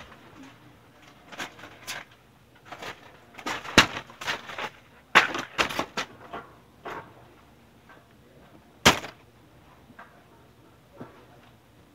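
Irregular sharp knocks and bangs, some in quick clusters, the loudest about four, five and nine seconds in, then quiet.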